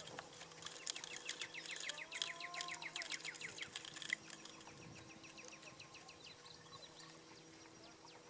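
A marsh bird calling a fast run of short, falling notes, about eight a second, fading over several seconds. A faint steady hum runs underneath.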